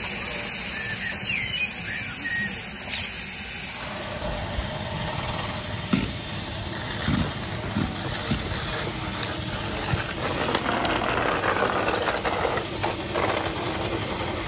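Steam hissing steadily from a miniature steam traction engine, stopping abruptly about four seconds in. After that comes a lower mixed sound with a few short knocks.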